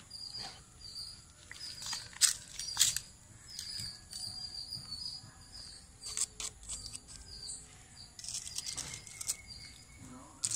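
Small birds chirping over and over, short high chirps, mixed with scattered clicks and scratching.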